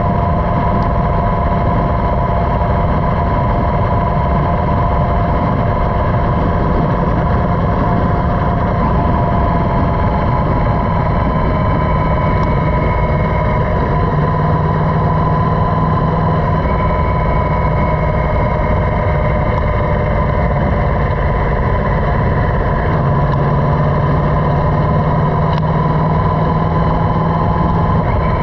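Motorcycle engine running at steady cruising speed, heard over heavy wind noise on the bike-mounted microphone; the low drone shifts slightly in pitch a couple of times.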